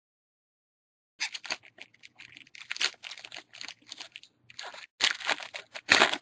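Foil wrapper of a 2012 Bowman Draft Picks & Prospects baseball card pack being torn open and crinkled by hand: irregular crackling and crinkling that starts about a second in and is loudest near the end.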